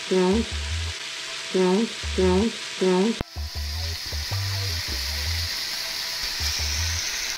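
Meat frying in hot fat in a pot, the sizzle growing louder after about three seconds as raw beef cubes are dropped in. Under it runs background music with a low beat, and a short bending-pitch tone repeats four times in the first three seconds.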